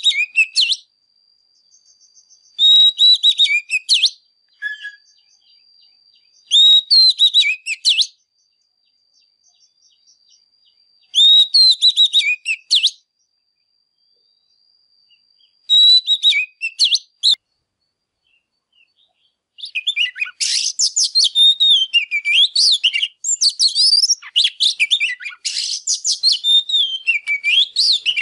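Male oriental magpie-robin singing: five short whistled phrases a few seconds apart, then a long unbroken run of varied song over the last third.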